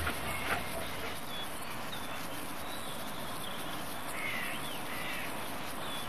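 Open-field ambience: a steady hiss with a few faint, short, high-pitched animal calls about four to five seconds in.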